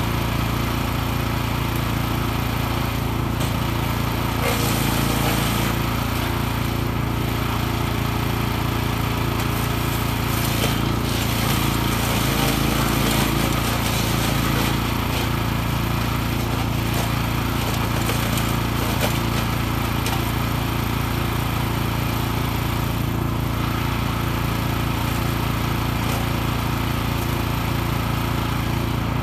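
PRO-14HP wood chipper's 14-horsepower petrol engine running steadily at working speed, with a few short crackles as branches are fed in and chipped.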